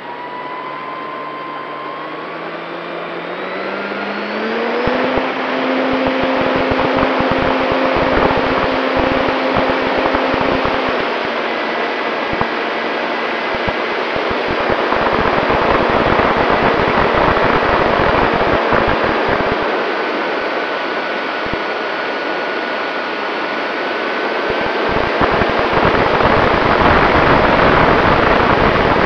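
Onboard sound of an E-flite P-51 Mustang RC plane. Its electric motor and propeller whine rises in pitch over the first five seconds as the throttle opens for takeoff, then holds a steady tone until about eleven seconds in. After that, gusty wind rushing past the plane-mounted microphone dominates in flight, with the motor tone faint beneath it.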